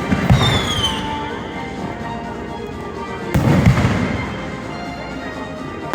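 Fireworks going off: a loud boom about a third of a second in, followed by a falling whistle, and a second loud boom a little past three seconds, each with a rumbling tail. Music plays faintly underneath.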